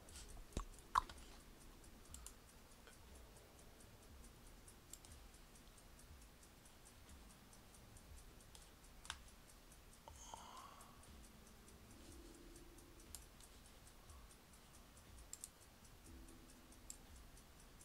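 Faint, scattered computer mouse clicks, a dozen or so spread irregularly, over quiet room tone.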